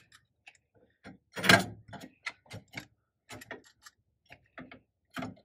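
Metal pin and retaining clip of a trailer's sway bar being pushed back into its bracket. It makes a run of small metal clicks and clinks, with the loudest knock about one and a half seconds in.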